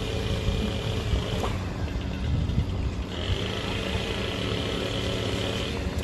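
Steady low rumble of a motor vehicle running, with a hiss that drops out about a second and a half in and comes back about three seconds in.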